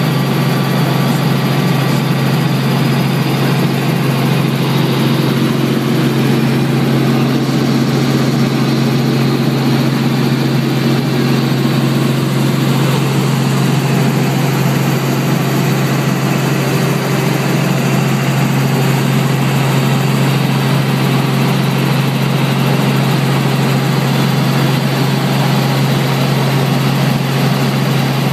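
Helicopter in level flight, engine and rotor noise heard from inside the cabin: a loud, steady low drone with a wash of noise over it, unchanging throughout.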